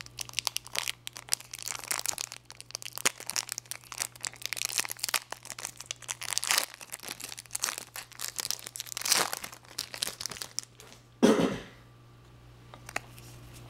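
Foil trading-card pack wrapper crinkling and tearing as it is handled and opened, a dense run of crackles, with one louder sudden sound about eleven seconds in.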